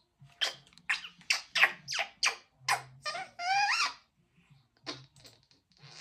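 Congo African grey parrot chattering: a quick run of short squeaks and mumbled calls, then a wavering whistle about three and a half seconds in, and a few more short calls near the end.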